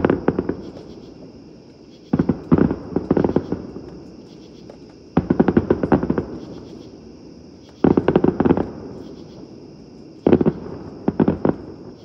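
Aerial fireworks going off: five clusters of rapid crackling bangs about two and a half seconds apart, each trailing off in a rumble.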